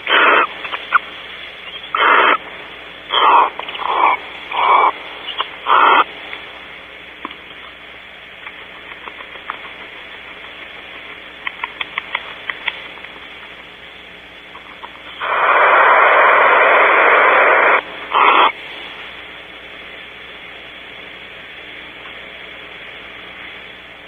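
Barn owls in the nest cavity giving harsh hissing screeches: a series of short ones in the first few seconds, a few quick clicks a little before halfway, then one long screech of nearly three seconds followed by a short one. The sound is close to the microphone and cut off above the upper treble, as from a small nest-box camera mic.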